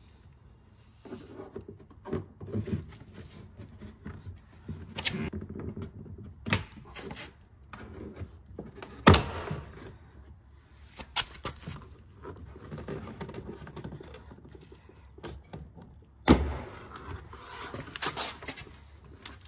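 Plastic car door trim panel being pried off its clips and handled: scraping, rustling and light knocks, with two sharp loud snaps, one about midway and one about three quarters through.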